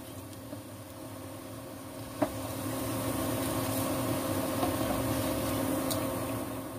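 Cassava getuk balls deep-frying in hot oil in a steel saucepan, the oil bubbling steadily over the hum of an induction cooker. A sharp clink of the spatula against the pot comes about two seconds in, after which the sound grows a little louder.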